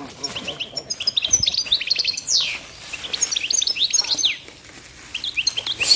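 Songbirds singing: quick runs of high chirps and short downward-sweeping notes that pause about four seconds in and start again near the end.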